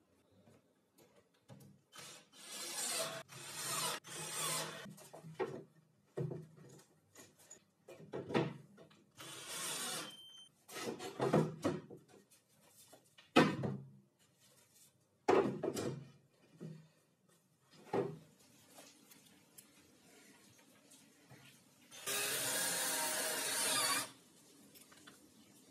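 A wooden fence strip scraped and shuffled across a laminated particleboard table top, with several sharp wooden knocks as it is set down and bumped. Near the end a cordless drill runs steadily for about two seconds, boring into the particleboard side of the cabinet, then stops.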